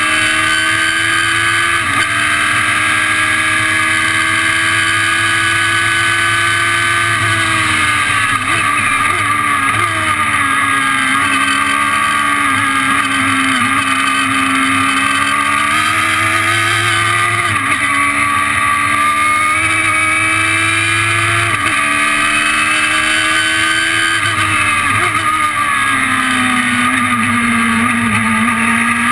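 2006 Radical SR3 race car heard from the cockpit at full throttle. The engine note climbs steadily along a straight, then falls and jumps several times as the car slows for corners and accelerates out again, over a constant rush of wind and road noise.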